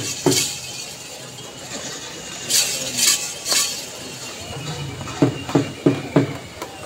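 Scattered sharp metallic clinks and clacks from a bull-driven Persian-wheel rig and its harness as the bulls circle the track. A few come around the middle, and a quick run of four comes after about five seconds.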